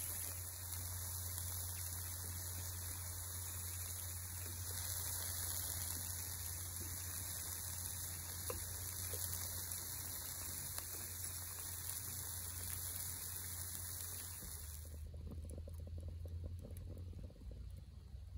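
Beef strips, garlic and bok choy sizzling on a griddle pan over a camp stove: a steady hiss with a low hum beneath and a few light clicks. About fifteen seconds in it cuts to a much quieter background.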